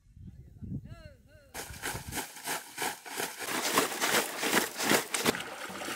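Water splashing and sloshing as wet fish are handled in a plastic crate: a dense run of irregular splashes that starts abruptly about one and a half seconds in.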